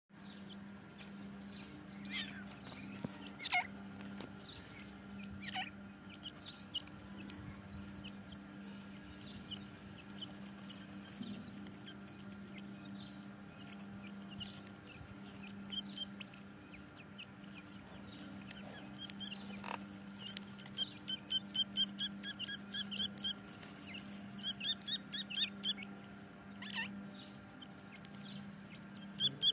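Grey francolin chicks peeping: scattered thin, high chirps, a few sliding down in pitch, then rapid runs of short peeps in the second half and again near the end. A steady low hum lies underneath.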